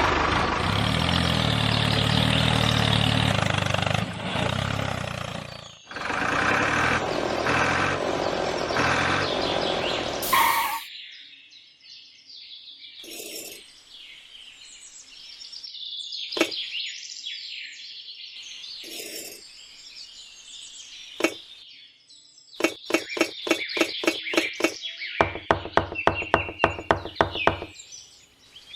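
A small engine runs loudly for about ten seconds, with two short breaks, then stops. Birds chirp afterwards, and near the end comes a rapid run of sharp ticks, several a second.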